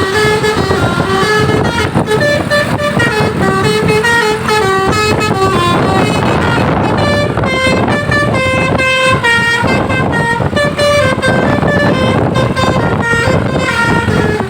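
Bus 'telolet' musical air horns (Basuri multi-trumpet horns) playing quick melodies of short stepping notes over engine noise. A rush of noise swells up about six seconds in.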